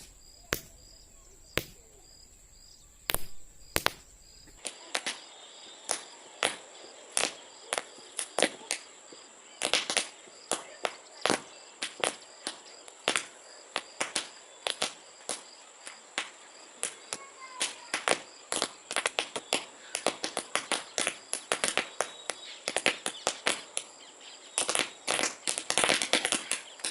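Paper roll caps going off one after another in an irregular string of sharp pops, bunching into a rapid crackle near the end.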